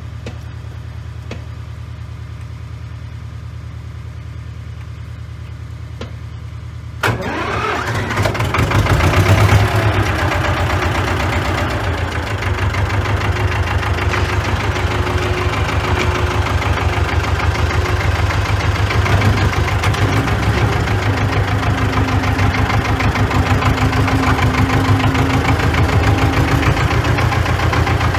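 Ursus C-330's two-cylinder diesel engine starting about seven seconds in, after a steady low hum, then running steadily.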